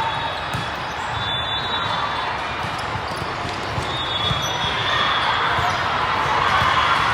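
Volleyballs being hit and bouncing on the court, dull thuds coming every moment or so, over the constant hubbub of a big tournament hall full of players and spectators.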